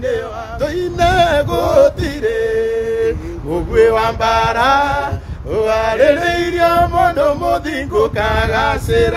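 A man singing in long, wavering held notes, phrase after phrase, over a low rumbling noise.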